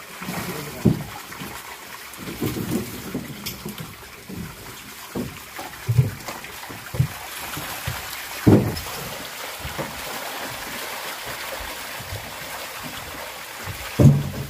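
A dense school of small fish such as sardines thrashing at the surface of a hauled lift net, a steady fizzing splash of churned water. A few dull thumps stand out: about a second in, around the middle, and near the end.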